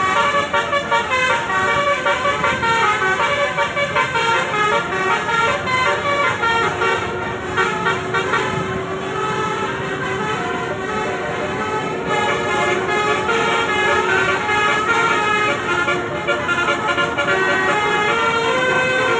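Basuri (telolet) musical air horns on a group of vehicles playing melodic runs, the notes stepping quickly up and down with a longer held note about halfway through, over vehicle engine rumble.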